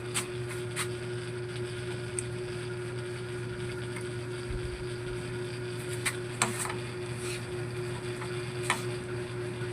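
Yamaha Mio i 125 scooter's single-cylinder four-stroke engine idling steadily, with a few scattered light clicks.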